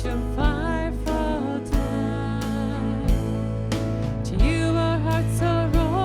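Contemporary worship song: a sung lead vocal over a band with a steady bass and regular drum hits.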